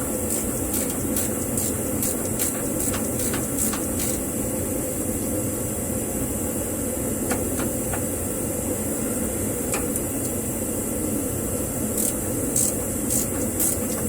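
A ratchet wrench clicking in short runs of strokes while suspension bolts are tightened, over a steady background hum. The clicks come in groups near the start and again near the end.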